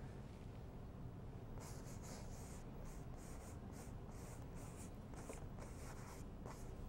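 A paintbrush working paint onto stretched canvas: a quick run of short, faint, scratchy brush strokes, about three a second, starting about a second and a half in, over a low room hum.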